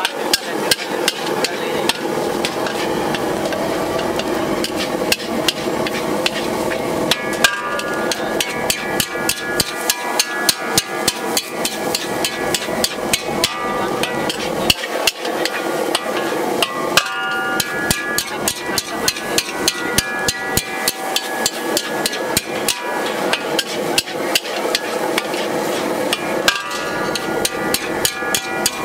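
Metal spatula stir-frying fried rice in a large wok, clanking against the pan in rapid, repeated metallic strikes, several a second, with the wok ringing at times.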